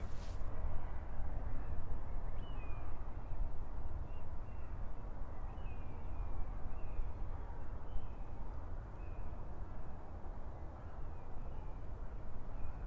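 Steady outdoor wind rumble, with short bird calls sounding every second or so.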